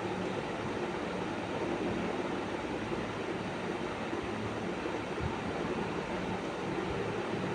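Steady mechanical hum under an even rushing noise, with a faint knock or two.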